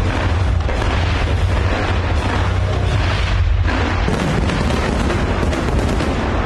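Fireworks display: a dense, unbroken barrage of booms and crackling from many shells and fountains going off at once.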